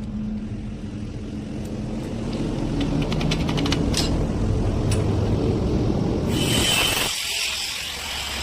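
Stick (arc) welding: a steady noisy rumble with scattered faint crackles, turning to a bright hiss about six seconds in.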